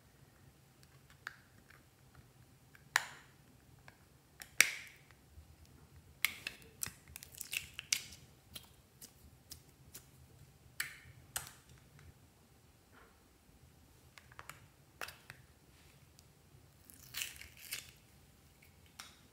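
Hands opening a plastic slime case and handling slime: scattered sharp clicks and taps of the plastic, the loudest two a few seconds in, with quieter sticky handling noises between.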